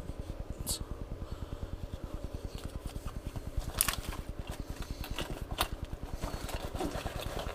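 Handling noise from rummaging through plastic tackle-box compartments and lures, with a few sharp clicks over a rapid, even low pulsing.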